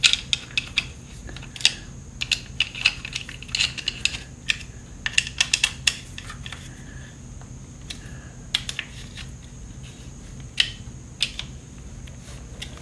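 Metal Allen key clicking and clinking against the bolt heads of a case saver cover on a Triumph Street Triple RS engine as the bolts are tightened by hand, in irregular clusters of sharp ticks.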